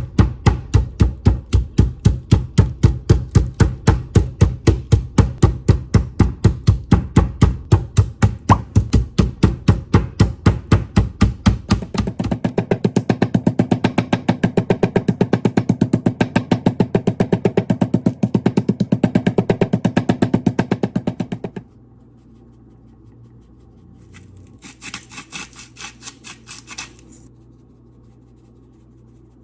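Rapid, even strikes on a kitchen cutting board, about four a second for some twelve seconds, then a faster, lighter run that stops abruptly. A short burst of lighter taps follows near the end.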